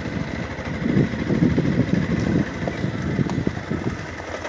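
Motorcycle engine running while the bike is ridden slowly along a gravel track, a dense low rumble that eases off a little near the end.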